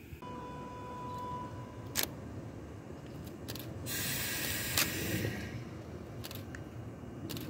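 Kintetsu train at a station platform, with a low rumble throughout and a short steady beep near the start. Several sharp camera-shutter clicks come from the photographers on the platform. A burst of air hiss from the train comes about four seconds in.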